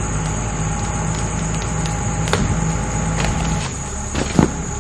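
Truck engine running under load as it pulls on a partly cut tree, its low hum changing as it eases off about three and a half seconds in. Insects buzz steadily behind it. A sharp knock comes about two seconds in and a louder thump near the end.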